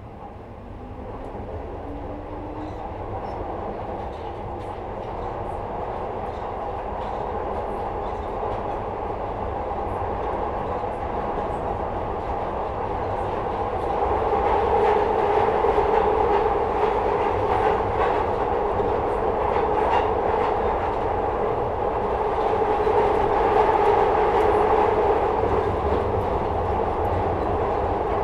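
Inside a Metro-Cammell-built 2nd-generation Glasgow Subway car as it gathers speed: the running noise builds steadily over the first dozen seconds, with a faint rising whine near the start, then settles into a steady loud rumble with scattered clicks from the wheels on the track.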